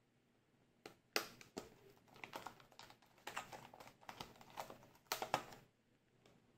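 A yellow plastic toy being handled and its buttons pressed: a quick, irregular run of hard plastic clicks and taps, starting about a second in and stopping shortly before the end.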